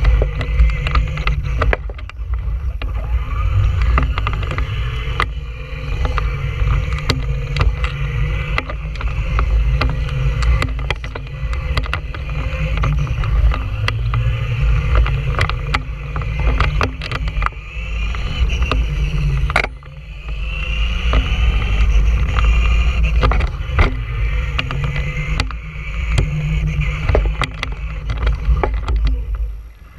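Traxxas Stampede 2WD RC monster truck driving on pavement, heard from a camera riding on the truck: a loud, steady rumble of wind and tyres with many rattling clicks from the chassis and camera mount. The motor and gears whine and rise in pitch about twenty seconds in, just after a sharp knock and a brief dip in level.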